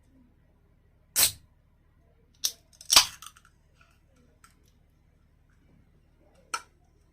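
Sharp clicks and crackles of food packaging and containers being handled: four short bursts, the loudest about three seconds in, with a brief rattle after it.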